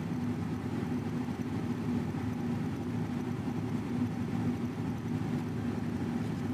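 Steady low mechanical hum with a constant drone and a rumble underneath, unchanging throughout.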